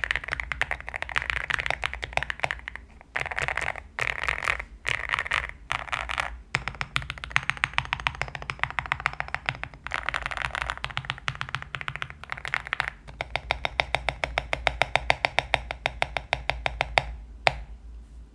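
Typing on a Zuoya GMK67 mechanical keyboard with KTT Kang White linear switches and a three-layer case tape mod, giving a thocky sound. Dense, fast keystrokes with a few brief pauses give way to a steadier run of evenly spaced strokes, ending on one louder stroke near the end.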